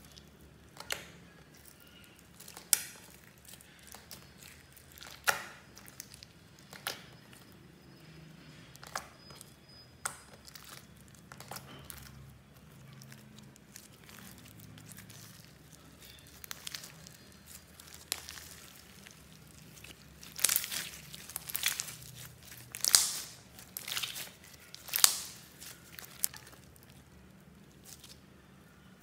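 Slime being folded, squeezed and stretched by hand on a plastic sheet: sticky pops and crackles every second or two, coming thicker and louder for several seconds about twenty seconds in.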